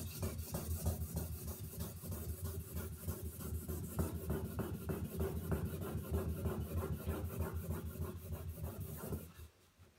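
2000-grit sandpaper rubbed by hand over a cured filler patch on an acrylic bathtub floor, in quick, even back-and-forth strokes that stop near the end.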